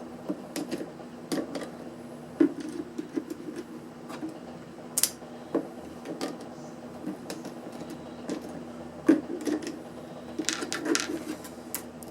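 Scattered clicks and knocks of plastic casing and tools being handled while a portable power pack is taken apart, over a steady low hum.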